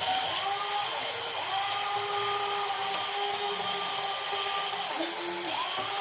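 Electric gear motors of a metal RC construction model whining under power. The pitch ramps up as the motors start, dips and stops briefly about a second and a half in and again near the end, then winds back up each time.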